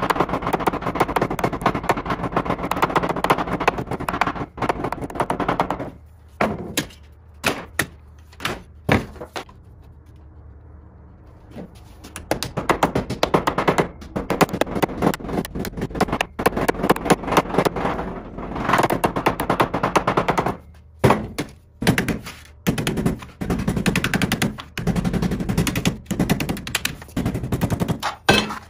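Claw hammer striking the edge of a thin steel sheet clamped under a board, folding the edge over into a flange. Fast runs of blows, a brief lull partway through, then slower single blows near the end.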